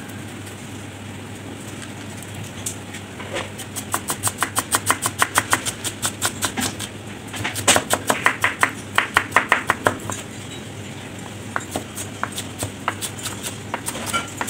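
Chef's knife chopping an onion on a plastic cutting board: quick, even chops about five a second, with a short pause midway, then slower, scattered cuts near the end.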